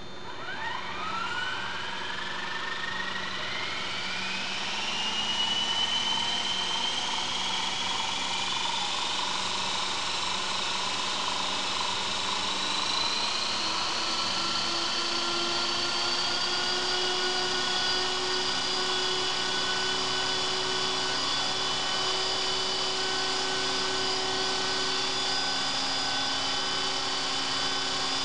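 CopterX 450 Pro electric RC helicopter spooling up on the ground: the brushless motor's whine rises in pitch over the first few seconds as the rotors come up to speed. It keeps climbing slowly, then levels off into a steady high whine with drivetrain and rotor noise.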